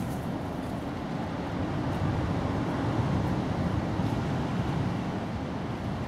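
Steady low rumbling background noise, without any distinct knocks or calls.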